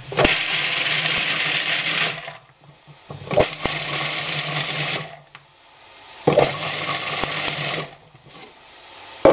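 Food processor chopping a cupful of mixed nuts (walnuts, Brazils, cashews, hazelnuts, pecans) in three pulses of about two seconds each, a steady motor hum under the noise of the nuts being broken up in the bowl.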